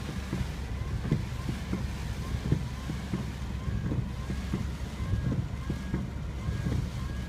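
Strong gusty wind buffeting the microphone, a continuous low rumble with frequent sharp puffs, as a typhoon approaches the coast.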